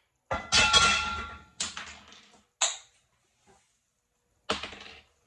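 Four sharp metallic clanks and knocks, the first and loudest ringing briefly: metal bed-frame parts and hardware being handled as the frame is taken apart.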